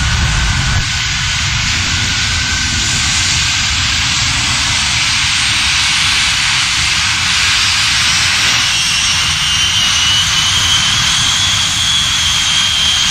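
Jet engines of a jet-powered semi truck running with a loud, steady roar, heaviest in the low rumble during the first second. About two-thirds of the way in, a thin high whine rises slowly over the roar.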